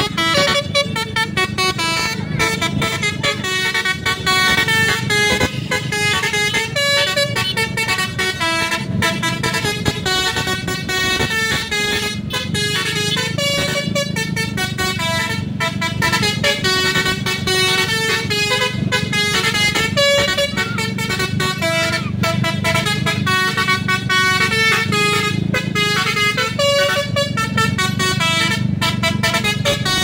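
A bus's Basuri telolet multi-tone horn, blown through roof-mounted trumpets, plays a continuous run of quick stepping melodies. A steady low engine rumble runs underneath.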